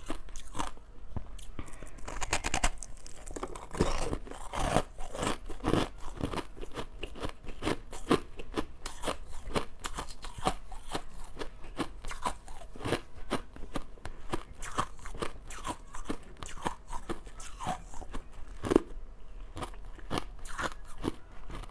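Close-miked crushed ice being bitten and chewed: a steady run of sharp, crunchy cracks, several a second, with one louder crunch near the end.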